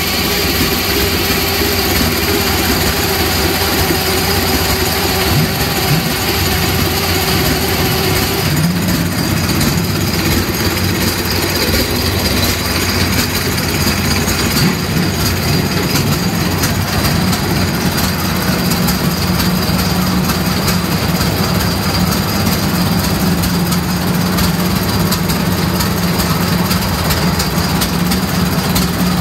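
1909 Lorraine de Dietrich racing car's 130 bhp four-cylinder engine idling, loud and steady. Its note shifts slightly about eight seconds in.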